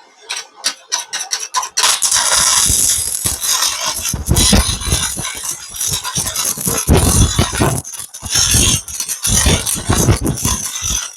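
Electric arc welding: the arc crackling and sputtering in uneven bursts as the steel shaft is welded into its bush, after a few sharp clicks about two seconds in.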